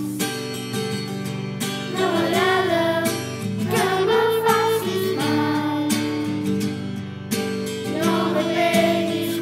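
Children singing a song in short phrases over a steady instrumental backing.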